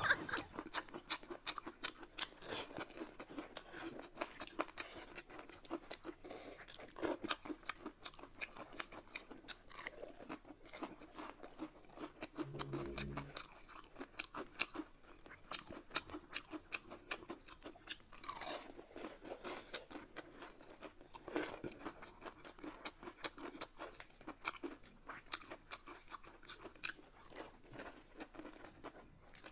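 Chewing close to the microphone, as in a mukbang eating show: a steady run of small crunchy, wet mouth clicks, with a few louder crunches. A brief low hum sounds about halfway through.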